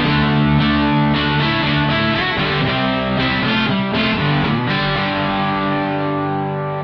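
Electric guitar played through an Electro-Harmonix EHXtortion JFET overdrive pedal set to its tight pre-gain position with moderate gain, giving a crunchy, distorted blues-rock tone. Chords and notes are picked and left to ring, with new attacks every second or so.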